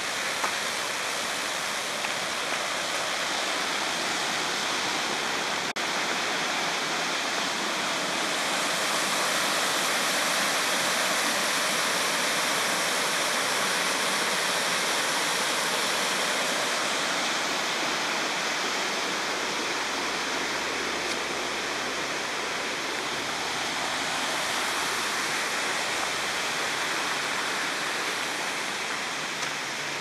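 Rushing water from a small waterfall and mountain stream below a gorge path: a steady rush that swells for a while, eases, then rises again briefly.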